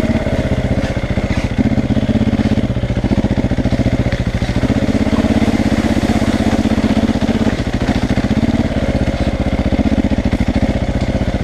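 KTM 450 EXC's single-cylinder four-stroke engine running under way at a fairly steady pace, its firing pulses coming fast and even, with mild swells in level as the throttle changes.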